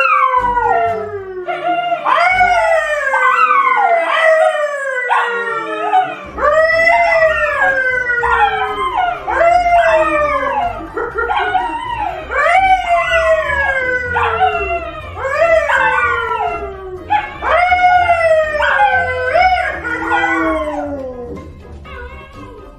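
A brown poodle howling along with a man howling beside it: a long string of loud howls, each rising and then falling in pitch, one after another, dying away near the end.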